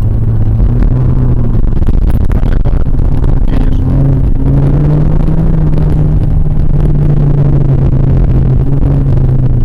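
Lada VAZ-2114's four-cylinder engine running hard in a low gear, heard from inside the cabin; its pitch climbs about four seconds in, holds steady, then eases near the end. Tyres and suspension rumble over the rough dirt track underneath.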